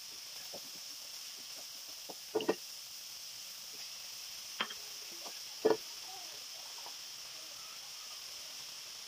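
Cauliflower frying in a pan with a faint steady sizzle, with a few sharp knocks of kitchenware against the pan as ingredients go in: a quick pair a couple of seconds in, then two more near the middle, the last the loudest.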